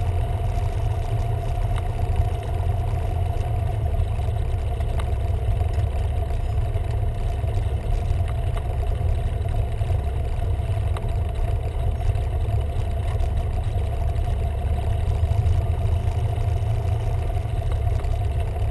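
Cessna 172R's Lycoming IO-360 four-cylinder engine idling steadily during the landing rollout, heard inside the cabin as a deep drone with a steady hum above it.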